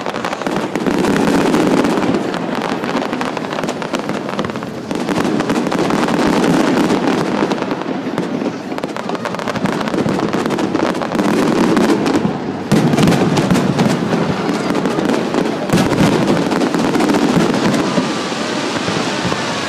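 Aerial fireworks bursting overhead in rapid succession: a dense, unbroken run of bangs and crackling, with a couple of especially sharp reports in the second half.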